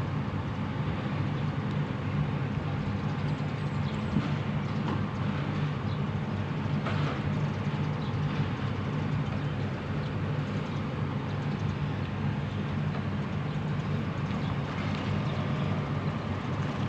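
Jonyang JY623E excavator's diesel engine running at a steady speed, with a low, even hum.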